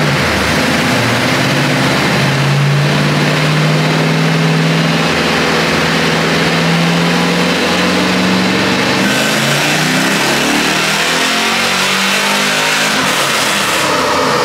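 Square-body Chevrolet 4x4 pickup's engine running hard under load on a chassis dyno during a dyno pull, its note climbing slowly, then changing pitch about nine seconds in. The truck has just been tuned after running too rich.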